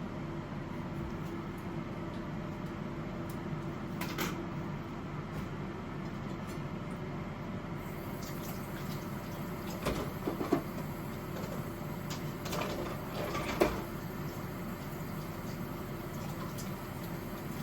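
Kitchenware being handled during cooking, heard as light knocks and clatters over a steady background hum: one knock about four seconds in, then two short bursts of clattering in the second half, the sharpest near the end of each.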